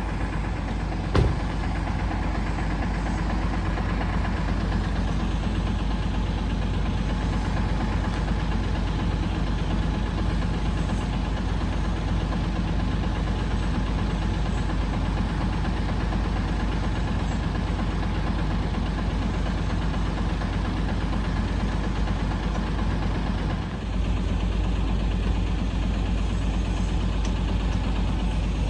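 Heavy diesel engine running steadily at idle, with one sharp knock about a second in and a brief dip in level late on.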